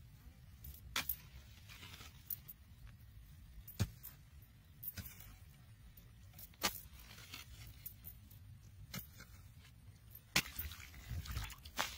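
Metal hoe blade chopping into hard clay soil: about six sharp strikes, irregularly spaced a second or more apart, with the clods rustling and scraping between them.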